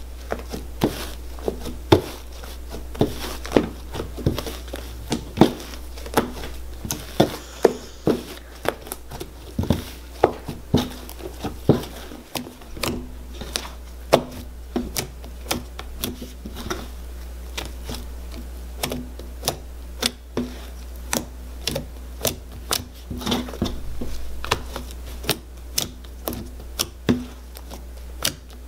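Hands kneading and poking fluffy shaving-foam slime, making a string of sharp, irregular clicks and pops, a few a second.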